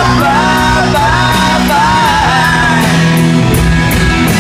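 Live country-rock band playing loud, with a steady cymbal beat and a wavering, bending lead melody line over the band.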